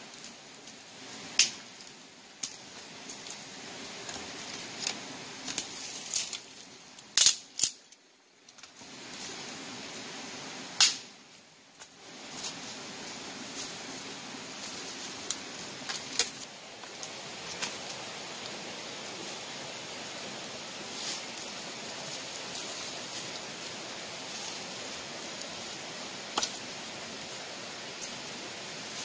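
Steady rush of a fast-flowing river, with scattered sharp snaps and knocks as sticks and brush are broken and handled close by.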